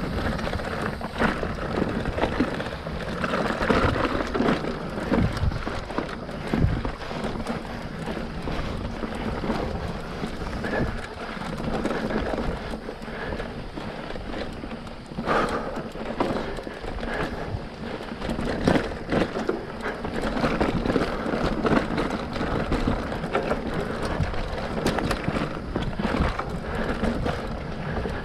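Specialized Rockhopper mountain bike ridden along a dirt trail: steady tyre and riding noise, with frequent clicks and knocks as the bike rattles over bumps.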